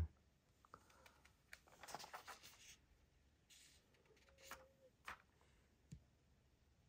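Near silence with faint handling noises: a few light clicks and soft rustles, a cluster of them about two seconds in and single clicks near the end.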